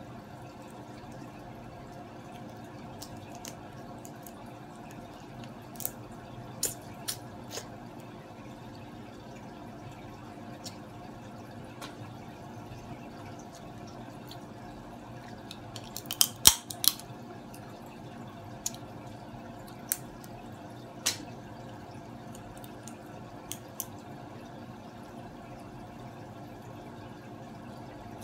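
Blue crab shell cracking and snapping between the fingers as the legs are picked apart: scattered sharp cracks, a few about six seconds in, the loudest cluster about midway, and single ones after. Under them a steady hum with a faint water trickle from an aquarium filter.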